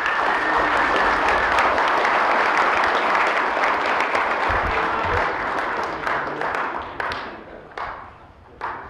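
Banquet-hall audience applauding the newly installed fire officers, with a long, steady whistle over the first second or so. The applause dies away about six seconds in, leaving a few scattered claps.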